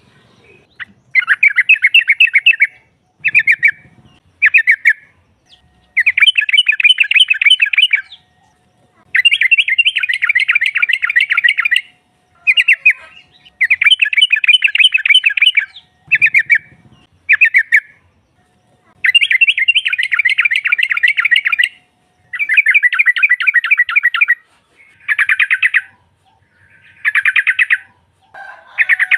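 Yellow-vented bulbul (trucukan) calling: repeated bursts of rapid, bubbly chattering notes in phrases of half a second to about three seconds with short pauses between. This is the female's call, used to draw males in.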